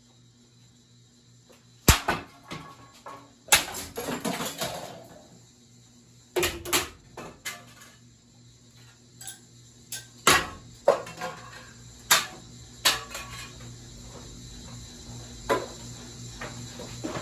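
Ceramic plates being thrown into a ceiling fan's spinning blades and smashing: a series of loud crashes with clattering shards, about seven in all, over the steady hum of the fan motor running at full speed.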